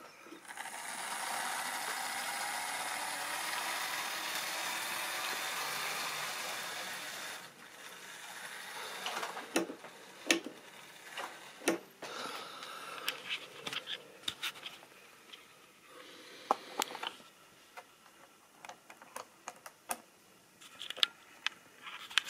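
Model railway diesel locomotive's small electric motor and wheels running on the track: a steady whir for about seven seconds that fades out, then scattered sharp clicks and knocks.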